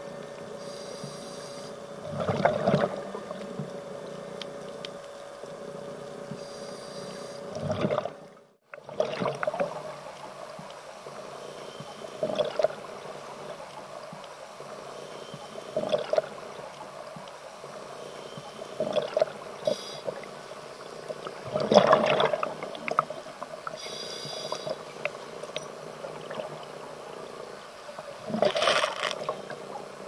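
Underwater recording of a scuba diver breathing through a regulator: loud gushes of exhaled bubbles every few seconds, with fainter hissing inhalations between them, over a steady underwater background.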